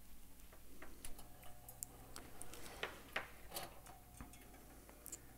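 Faint scattered clicks and taps of a power plug and an extension cord's socket being handled as the toaster is plugged in.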